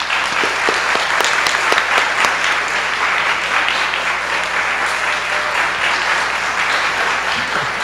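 An audience applauding, a steady, even spell of many hands clapping.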